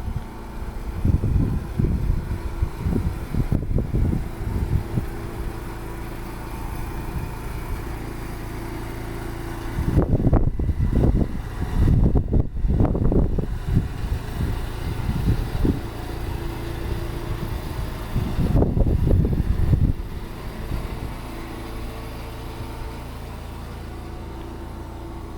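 Strong gusty wind buffeting the microphone in irregular low rumbles, heaviest in two long gusts through the middle and later part, over a steady low hum.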